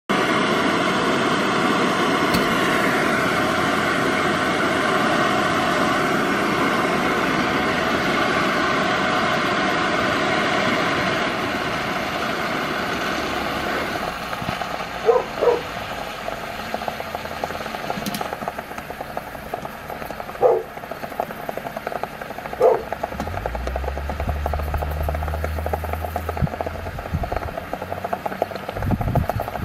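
Nerds candy sizzling and hissing under a glowing red-hot metal ball, loud at first and dying down after about twelve seconds. Then a few sharp pops follow as the burning candy spatters molten sugar onto the glass.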